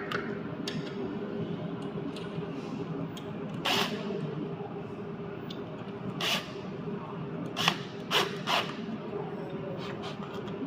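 Steady low hum with five short, sharp knocks and clicks of parts and tools being handled on a treadmill under repair, three of them in quick succession near the end.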